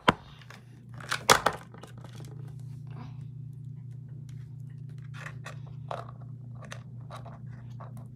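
A hard plastic toy airplane being handled and clicked close to the microphone: sharp knocks at the start and again about a second in, then scattered lighter clicks and rattles, over a steady low hum.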